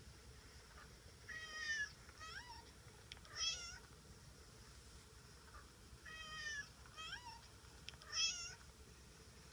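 Domestic cat meowing: three short meows in quick succession, then the same three again about five seconds later.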